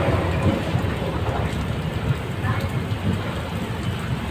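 Heavy rain pouring down, heard from the open doorway of a passenger train coach, over the low, steady rumble of the coach rolling slowly into a station.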